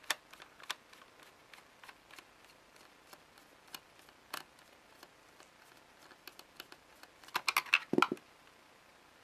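Small flathead screwdriver turning a screw out of a plastic VeriFone 3750 card terminal: faint, scattered clicks of the tip and screw. Near the end a quick cluster of clicks and a dull knock as the screw is picked out by hand and the plastic housing is handled.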